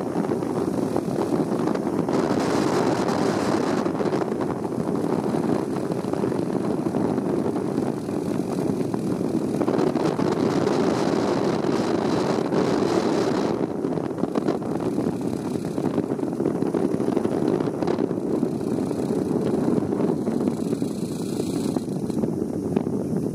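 Steady rushing and rumbling of a rope-runner ride along a steel cable: wind on the microphone over the trolley running along the cable.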